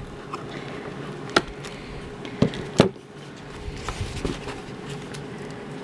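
Scissors snipping a small toy free of its card backing: a few short sharp clicks and snips, the loudest nearly three seconds in, with light handling of the packaging.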